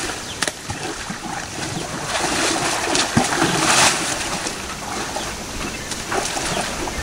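Shallow stream water splashing and trickling as young Asian elephants wade in and dip their trunks, with a louder splash about three and a half seconds in.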